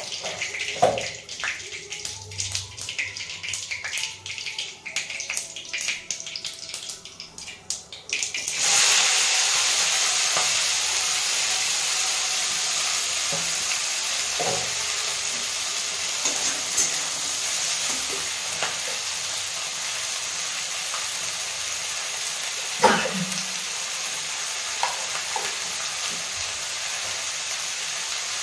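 Mustard and cumin seeds crackling in hot oil in a kadhai; about nine seconds in, chopped vegetables are tipped in and the oil breaks into a loud, steady sizzle that slowly eases off, with a few knocks of a spatula against the pan.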